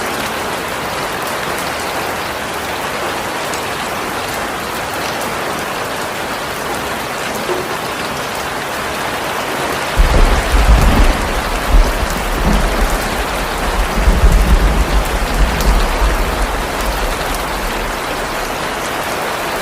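Steady heavy rain falling on a surface. About halfway through, a loud low rumble comes in, swelling in gusts for several seconds, then dies away before the end.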